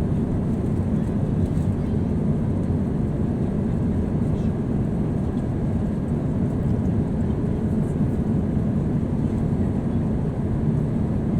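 Steady low rumble of a jet airliner heard from inside the passenger cabin: engine and airflow noise, even throughout.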